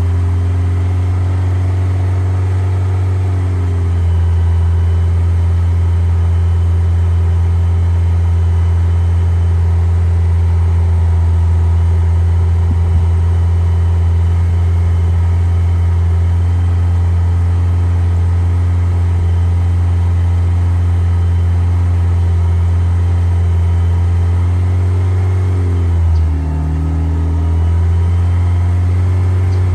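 1990 Mazda Miata's 1.6-litre four-cylinder engine running steadily, held above idle as an Italian tune-up to burn out carbon. The revs rise slightly about four seconds in, then dip briefly and recover near the end.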